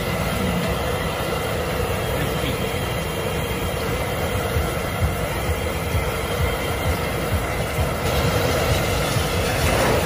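Steady rumble and hiss of a moving vehicle.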